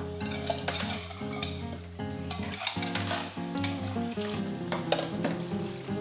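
Food sizzling in a pan as it is stirred, with a utensil clinking against the pan a few times, over background guitar music.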